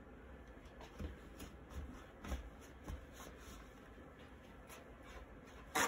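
Soft rustles and light knocks of a wet acrylic-pour canvas being handled and set down on a work table, with one sharp click near the end.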